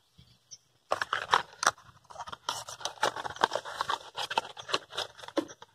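Packaging rustling and crackling, with scrapes and clicks, as the new coolant temperature sensor is taken out; it starts about a second in.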